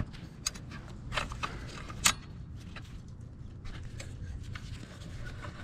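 A 5 mm Allen wrench unscrewing the bash-plate bolts of an electric dirt bike: scattered small metallic clicks and ticks of the key against bolts and frame, the sharpest about two seconds in, over a low steady rumble.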